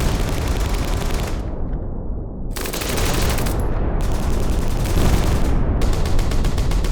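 Battle sound effect: four bursts of rapid machine-gun fire over a continuous low rumble of distant gunfire.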